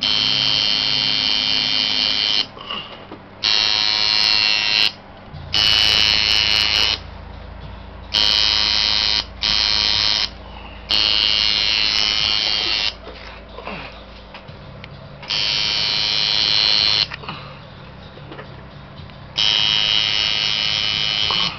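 Coil tattoo machine buzzing against skin in about eight short runs of one to two seconds each, stopping and starting as the artist works.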